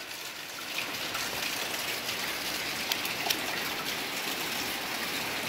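Heavy rain falling steadily on a gravel driveway and yard, a even hiss with a few sharper taps from nearby drops.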